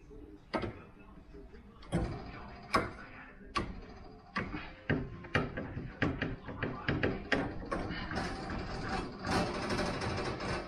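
Irregular sharp knocks and clanks of tools working on old shower plumbing, coming faster and turning into a denser clatter over the last few seconds.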